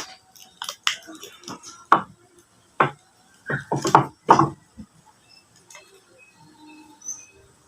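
Small hard clicks and rattles of squid jigs, swivels and snap clips being handled on a nylon fishing rig, in irregular clusters for about the first five seconds. After that, faint high chirps repeat at an even pace.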